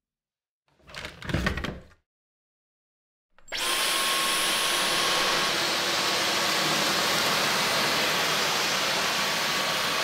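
Dyson V15 Detect cordless stick vacuum switching on about a third of the way in, spinning up within a fraction of a second, then running steadily with an even rushing suction noise. A brief, low handling knock comes about a second in, before it starts.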